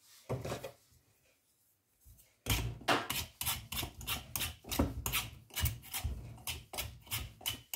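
Y-shaped vegetable peeler scraping strips of rind off a hard pumpkin: a brief scrape, then from about two and a half seconds in a steady run of quick rasping strokes, about three a second. The rind is tough and hard to peel.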